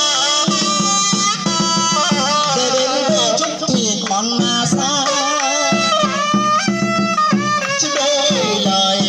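Vietnamese funeral band music (nhạc hiếu): a wavering melody with sliding, bending notes over a low drone and drum beats.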